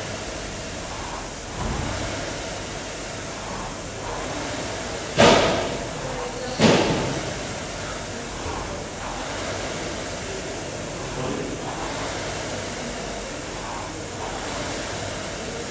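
Concept2 air-resistance rowing machine's fan flywheel whooshing, swelling with each stroke about every two and a half seconds. Two sharp thuds land about five and six and a half seconds in.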